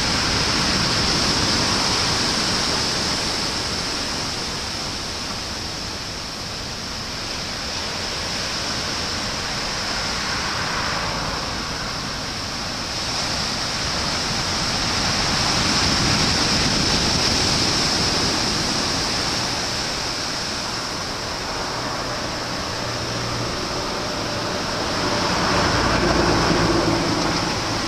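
Heavy storm surf from a typhoon, a continuous rushing wash of breaking waves that swells and ebbs every several seconds, with a steady high hiss over it.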